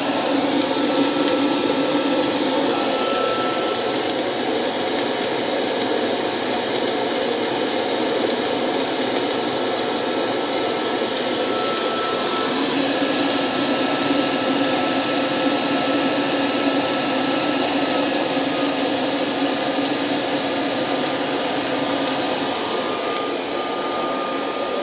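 DIY fluid-bed coffee roaster's hot-air blower running steadily, churning 300 g of beans in the glass chamber, with a few faint pops among the noise: first crack, showing the beans have reached that stage of the roast.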